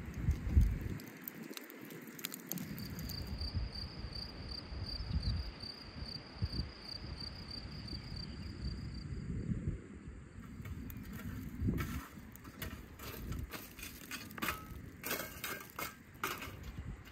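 Lumps of charcoal clattering and clinking as a shovel tips them onto a heap of charcoal, many sharp irregular clinks in the second half. Earlier, a high, evenly pulsed chirping goes on for several seconds.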